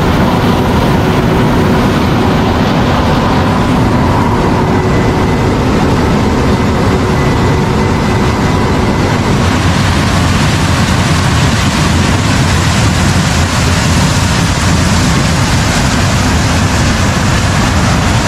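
New Holland TX68 combine harvester running steadily with a loud, continuous diesel-engine and machinery noise. A faint whine sits over it for the first half, and the noise turns brighter and hissier from about halfway through.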